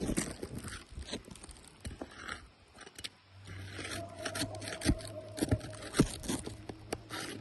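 Irregular scraping and sharp clicks of a tool and hands working brittle roof shingles. A low steady hum comes in about halfway through.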